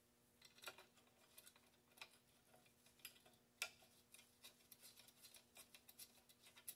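Light, irregular clicks and taps of steel belt-grinder kit parts being handled and fitted together with gloved hands, with one sharper tap a little past halfway.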